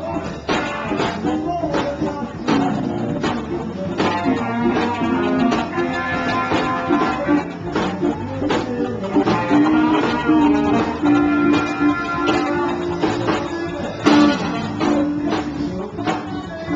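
Live blues-rock band playing: electric guitars over a drum kit, with long held guitar notes and steady drum hits.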